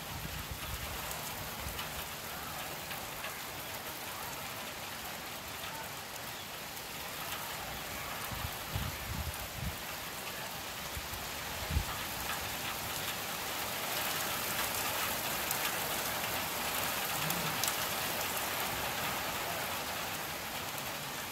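Steady rain falling, an even hiss that grows a little louder in the second half, with a few brief low thumps around the middle.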